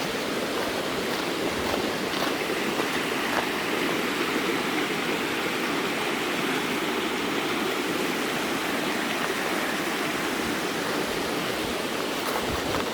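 Stream water rushing steadily, an even, unbroken rush.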